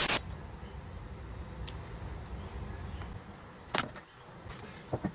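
A burst of TV-static hiss from a glitch transition cuts off just after the start. It is followed by a low, steady rumble with a few short clicks and knocks in the second half.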